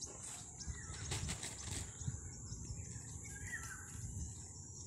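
Insects droning steadily at a high pitch, with a short bird chirp about three and a half seconds in. A few light knocks about one to two seconds in, as fruit is handled.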